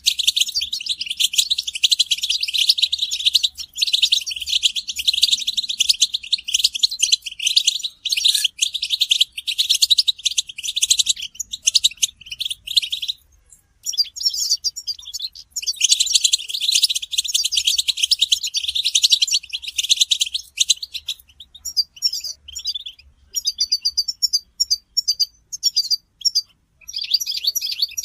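European goldfinches twittering together in a dense, rapid chatter of high tinkling notes, the group song and mating calls used to stir a male goldfinch into singing. The chatter breaks off briefly about halfway through, then turns into sparser, more separated notes near the end.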